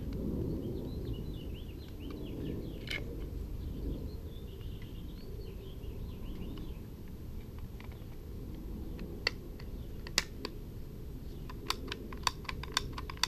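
Sharp clicks of hard plastic and metal parts knocking together as a Bernzomatic TS3000 torch's plastic handle is handled and fitted back together. The clicks are scattered at first, then come quickly, about several a second, near the end.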